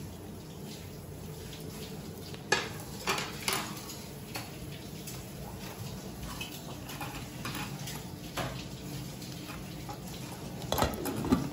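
Spoons and chopsticks clinking against ceramic bowls and dishes, a scattering of separate sharp clinks. Near the end comes a quick cluster of clatters as the glass lid is lifted off a stainless steel pot.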